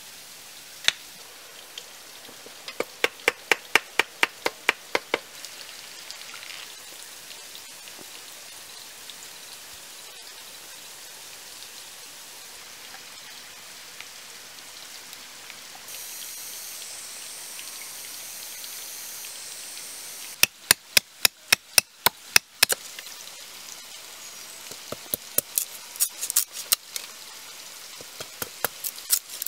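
A machete blade knocking against bamboo in quick runs of sharp strikes, about four to five a second, as a bamboo strip is split and trimmed, over a steady hiss.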